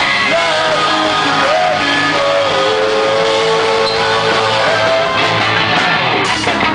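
Live rock band playing with electric guitar, a held melody line sliding between notes, and drums hitting harder near the end.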